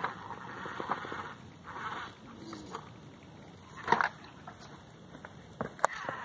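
Scale RC rock crawler clambering up a rock crevice: tyres and chassis scraping and grinding on the rock, with scattered sharp knocks, the loudest about four seconds in and two quick ones near the end.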